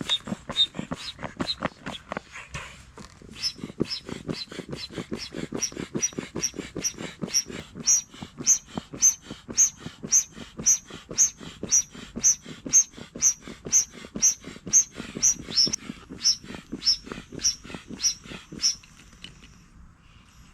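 Manual air pump inflating a rubber boat: quick, even pump strokes about two a second, each with a squeaky rush of air, pausing briefly about three seconds in.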